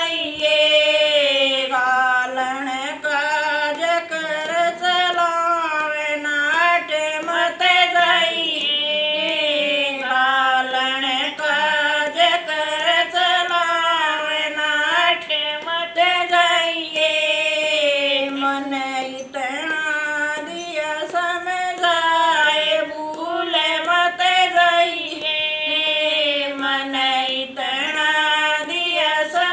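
Two women singing a song together without instruments, in long, sliding held notes.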